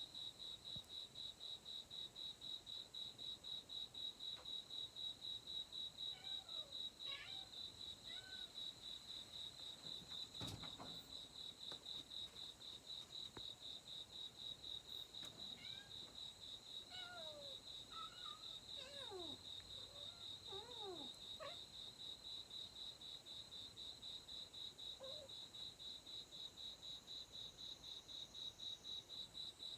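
A cricket chirping steadily, a high trill pulsing about four times a second. Faint cat meows come and go in the middle, and there is a single knock about ten seconds in.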